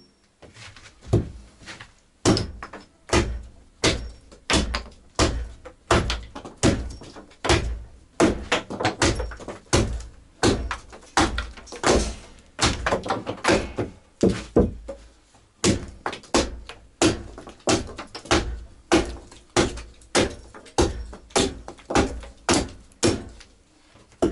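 Hammer striking wood in a steady run of blows, a little more than one a second.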